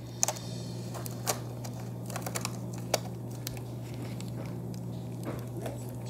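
Scattered sharp clicks and light rubbing from hands handling and stretching rubber balloons while filling a homemade stress ball, over a steady low hum.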